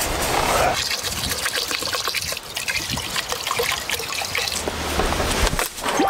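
Water trickling and splashing in a pot as rice is washed by hand.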